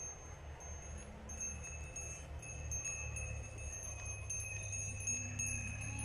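Bells on the necks of a herd of goats clinking and ringing as the goats walk and trot about the pasture, several bells overlapping.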